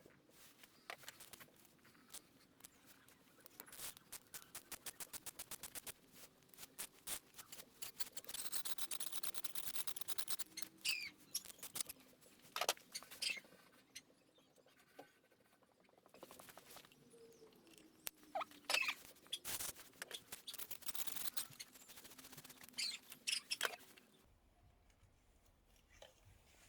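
Ratchet wrench clicking in quick runs as new glow plugs are screwed into the diesel cylinder head, with a few short squeaks of metal on metal between the runs.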